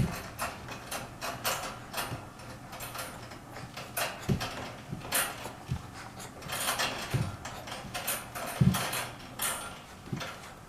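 Jolly Jumper baby bouncer creaking and clicking as a baby bounces in it. From about four seconds in a short low thump comes roughly every one and a half seconds.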